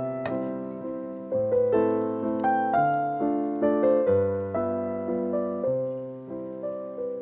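Background piano music: a melody of struck, fading notes over lower chords in a steady rhythm.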